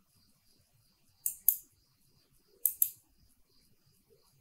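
Two quick double clicks of a computer mouse, about a second and a half apart, with near silence between them.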